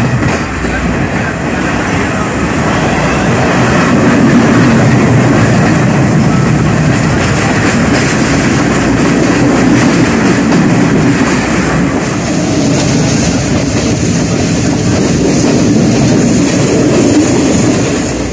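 Moving passenger train heard from its open coach window: the steady rumble and rattle of the carriage wheels on the rails, getting louder about four seconds in.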